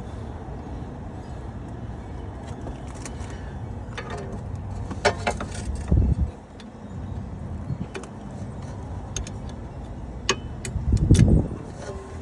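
Metal clinks and knocks of hand tools and sockets being handled during work on a car's wheel hub, over a steady low rumble. A heavier knock about six seconds in and another near eleven seconds.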